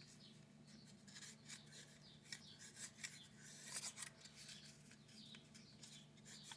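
Faint, irregular scratching strokes of emery rubbing on the contacts of a small 12-volt DC motor, over a low steady hum.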